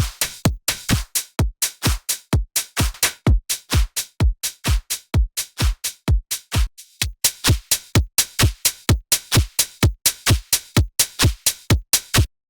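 Electronic music played back in Ableton: a fast, even run of punchy synthesized drum hits, each dropping sharply in pitch, about four a second. It cuts off abruptly near the end.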